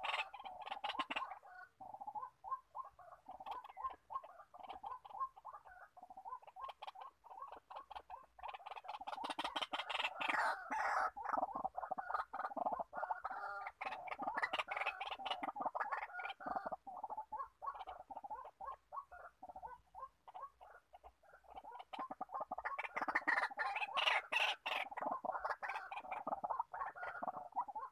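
White-breasted waterhen calling: a fast, unbroken run of repeated harsh croaking notes that swells louder twice, about ten seconds in and again near the end.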